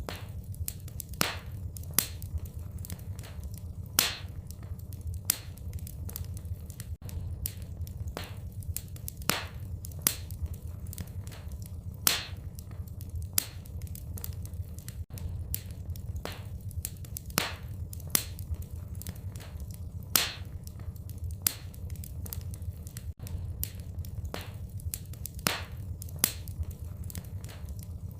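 Wood fire crackling in a fireplace: irregular sharp pops and snaps, a louder one every second or two, over a steady low rumble.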